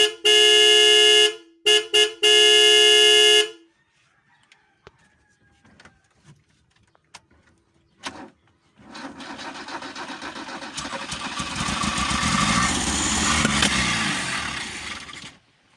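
Car horn sounding in several blasts, one short and others longer, over the first few seconds. After a few faint clicks, about nine seconds in, the engine cranks over with a rough, swelling noise for about six seconds and then stops suddenly; the car is hard to start.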